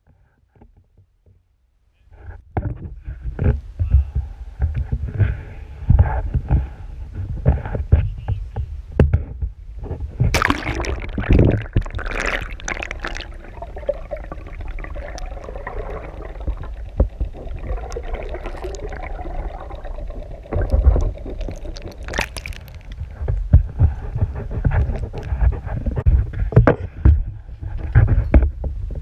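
Muffled water sloshing and gurgling heard through a GoPro's waterproof housing, with heavy low rumbling and frequent knocks against the case; it starts about two seconds in.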